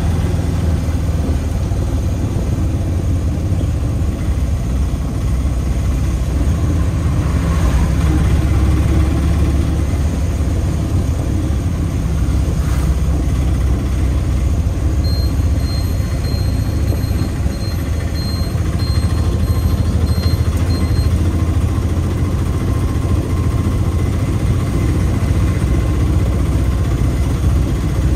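Auto-rickshaw engine running steadily as the three-wheeler drives along, heard from inside its open-sided passenger cabin together with road noise.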